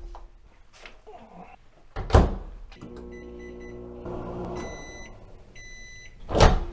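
Over-the-range microwave oven: the door shuts with a thunk about two seconds in, then the oven runs with a steady hum. It stops and gives two long end-of-cycle beeps, and the door is popped open with a thunk near the end.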